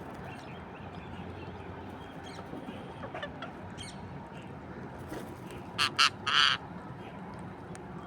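Parrot squawking: two short harsh calls and then a longer one about six seconds in, over a steady background hum with faint bird calls.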